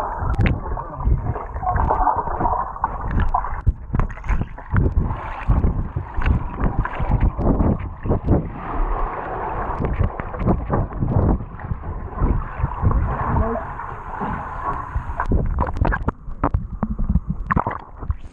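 Pool water splashing and gurgling around a GoPro in its waterproof housing as it moves through the water, with many irregular knocks and splashes.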